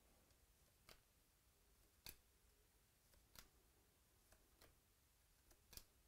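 Near silence broken by faint, sharp clicks about once a second: glossy baseball cards being flicked from one to the next in the hand.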